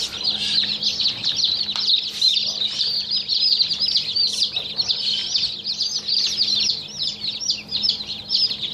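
A crowd of newly hatched chicks, about 30 hours out of the shell, peeping continuously: many short, high cheeps that fall in pitch, overlapping without a break.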